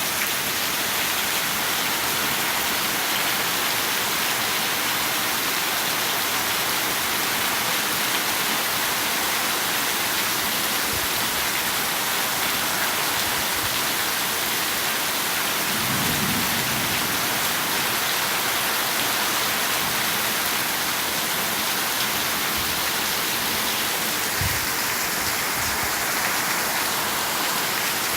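Rain falling steadily, an even hiss of drops on surfaces.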